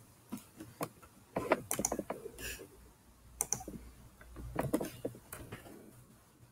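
Computer keyboard being typed on: scattered keystrokes in a few short clusters.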